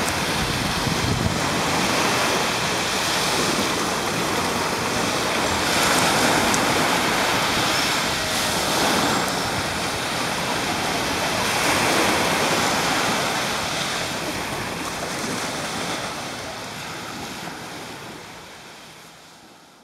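Small sea waves breaking and washing up a sandy beach, a steady rushing that swells and ebbs as each wave comes in. The sound fades out near the end.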